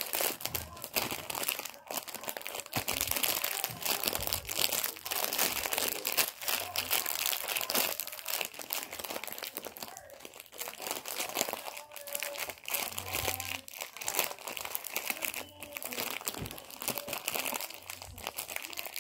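Steady crinkling and rustling close to the microphone, a dense run of small crackles.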